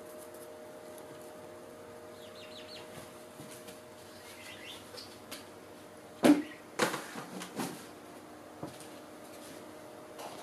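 Knocks and clatter of things being handled and set down, loudest about six seconds in, with a few faint bird chirps before it and a steady hum underneath.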